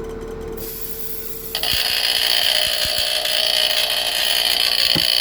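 Vintage Vanguard Smoke photoelectric smoke detector's electric alarm horn going off, a loud, steady, buzzing tone that starts suddenly about one and a half seconds in after a steady hum: the detector has been triggered and is working.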